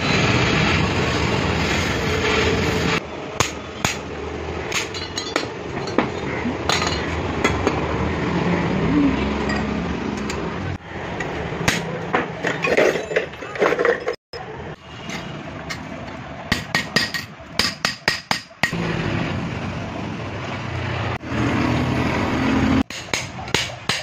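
Gas torch hissing against a perforated steel baffle tube from a Yamaha RX exhaust silencer, then a hammer striking the metal tube many times, clinking, with quick runs of blows later on.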